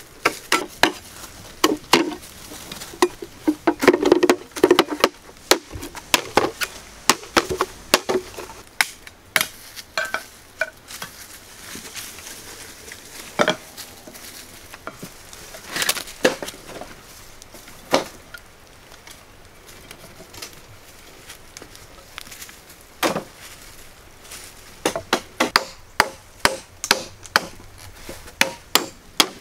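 Bamboo poles being handled: irregular sharp wooden knocks and clatters, coming in quick clusters at the start and again near the end, with single strikes in between.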